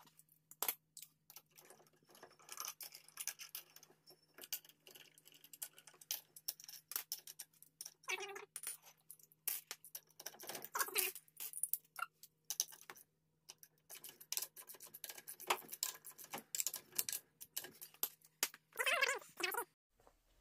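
Irregular small metal clicks and clinks of lug nuts and washers being handled and threaded onto a car wheel's studs by hand, over a faint steady hum.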